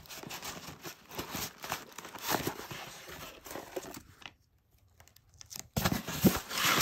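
Cardboard box flaps and paper packing rustling and crinkling as a parcel is unpacked by hand. The handling stops for a moment about two-thirds of the way through, then starts again with louder crinkling near the end.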